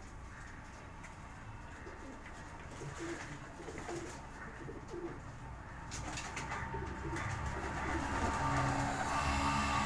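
Pigeons cooing in low, repeated calls while they bathe, with splashes and wing flaps in a shallow basin of water from about six seconds in. A rumble with a steady hum builds over the last few seconds and is the loudest thing by the end.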